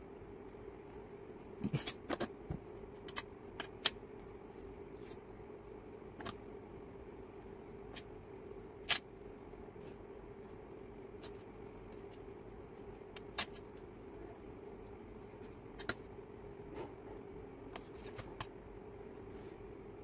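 Scattered sharp plastic clicks and light scrapes of mechanical-keyboard parts being handled during a switch swap on a Redragon K596. A quick cluster of clicks comes in the first few seconds, then single clicks every few seconds, over a steady low hum.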